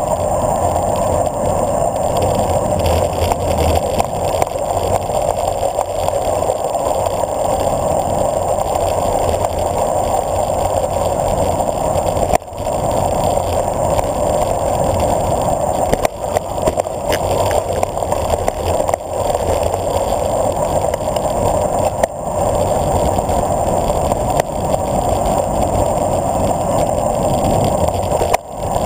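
Steady rush of wind and road noise on a camera riding with a road bicycle on a fast downhill descent, dipping briefly a few times.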